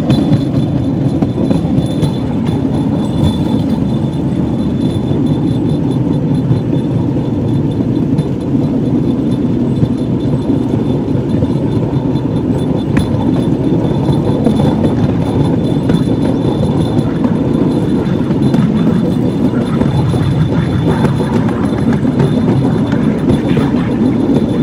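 Steady, loud rumble of a light rail vehicle running along a narrow-gauge track: wheels rolling on the rails, with a faint high whine above it.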